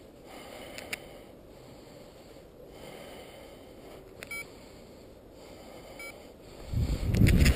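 Low wind noise on the microphone with a few faint, short electronic beeps. About seven seconds in, loud low thumps and buffeting on the microphone start and carry on.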